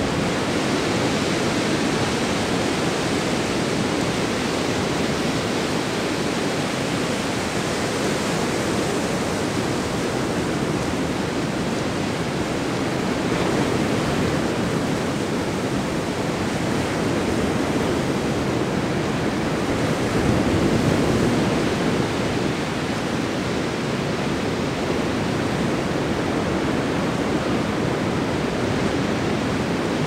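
Ocean surf breaking on a beach: a continuous rushing wash of waves that swells slightly about thirteen seconds in and again around twenty seconds in.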